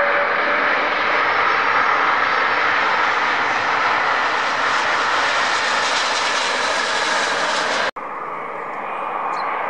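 Jet engines of a widebody airliner on the runway after touchdown: a loud, steady roar that grows brighter and hissier over several seconds. It cuts off abruptly about eight seconds in and gives way to a quieter jet hum from another airliner on approach.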